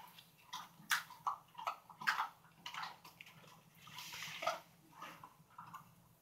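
Dogs chewing hard dog biscuits: faint, irregular crunches and clicks, with a short hiss about four seconds in.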